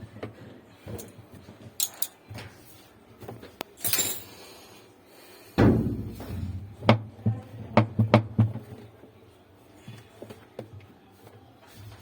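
A run of scattered knocks and clatters from parts and tools being handled, with one heavier thump about five and a half seconds in and a quick cluster of knocks just after it.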